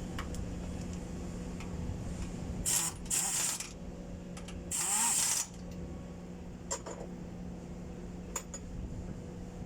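Workshop tool work on a truck's fuel pump: two short bursts of hissing noise, each under a second, and a few sharp clicks over a steady low hum.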